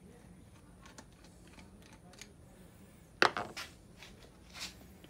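Small carburetor parts handled at a workbench: a few faint clicks, with one sharp click about three seconds in.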